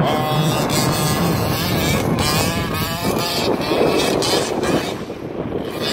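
1/5-scale Losi 5ive-T RC truck's OBR 47cc two-stroke gas engine revving hard as the truck accelerates away across loose sand, its pitch swinging up and down about halfway through. Wind buffets the microphone.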